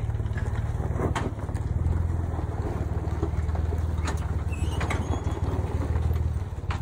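Off-road 4x4's engine running steadily at low revs, with a few sharp knocks: about a second in, around four seconds in and near the end.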